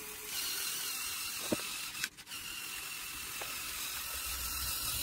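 Steady hiss-like whirring from the electric motors and gear trains of a motorised Lego Technic truck model, with a brief dip about two seconds in.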